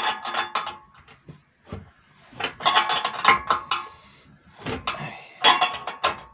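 Spanner worked back and forth on the nut of a threaded-rod puller that presses a rubber silent block out of a moped frame: about four bursts of quick clicking with metallic clinks.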